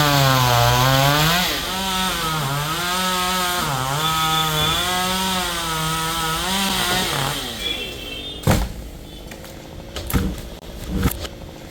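Two-stroke chainsaw cutting wood, its engine pitch repeatedly sagging and climbing again as the chain bites and frees, then stopping about seven seconds in. Three sharp knocks follow.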